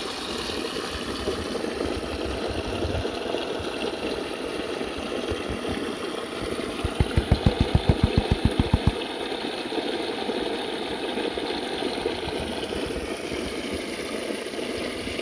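Steady rushing of flowing creek water, with a quick run of about a dozen low thumps around the middle.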